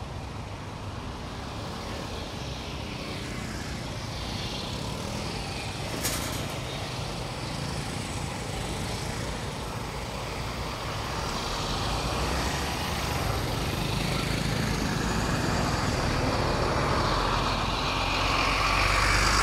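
Road traffic of motorbikes and a truck running, growing steadily louder as the vehicles cross, with one sharp click about six seconds in.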